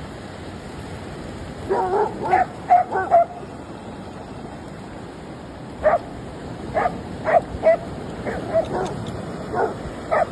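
A dog yipping in short, high-pitched yelps: a quick run of about five about two seconds in, then single yips every half second or so from about six seconds on, over steady surf and wind noise.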